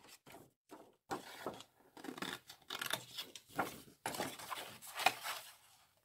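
Sheets of scrapbooking paper rustling as they are picked up, flipped and shuffled by hand, in a string of short, irregular bursts.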